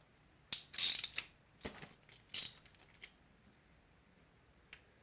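Ratchet handle with an 8 mm deep socket clicking in several short bursts, working the pedal's axle nut loose.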